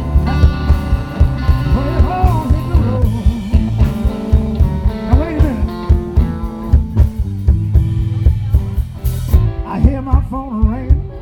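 Live electric blues band: a Stratocaster-style electric guitar playing a solo with bent notes over bass and drums keeping a steady beat.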